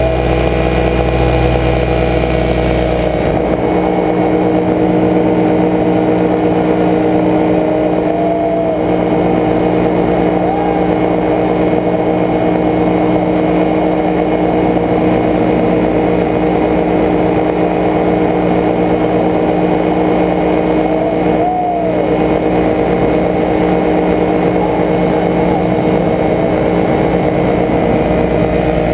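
Paramotor trike engine and propeller running steadily in flight, a loud, even drone whose low rumble thins out about three seconds in.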